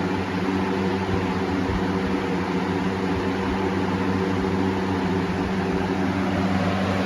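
Galaxy 4733 box fan with a swapped-in shaded-pole motor running steadily on medium speed: a loud rush of air over a steady motor hum. The blade is too light for the motor, so medium runs almost as fast as high.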